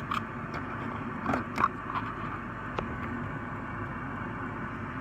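A few small clicks and taps from handling die-cast toy cars, four of them in the first three seconds, over a steady background hiss.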